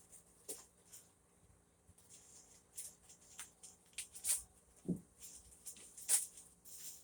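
Packaging wrap crinkling and rustling in short, scattered crackles as a tightly wrapped knife is cut and pulled free of it.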